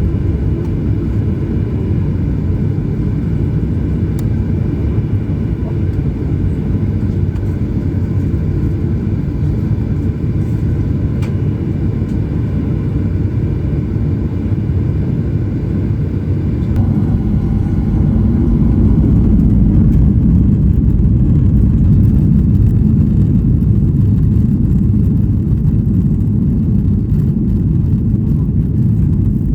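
Cabin noise of a Boeing 737-900 taking off, its CFM56-7B jet engines and the airframe giving a steady deep rumble. The noise grows louder about 17 to 20 seconds in.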